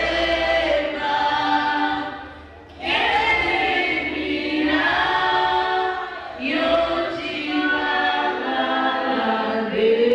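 Choir of women singing a hymn unaccompanied in loud, sustained phrases, with short breaths between phrases about two and a half seconds in and again around six seconds.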